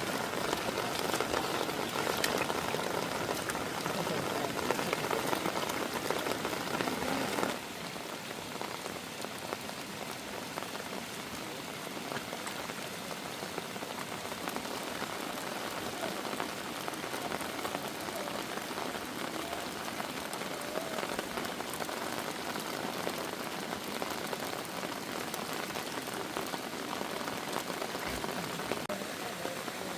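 Heavy rain falling as a steady hiss of drops. About seven seconds in it suddenly becomes quieter, then carries on evenly.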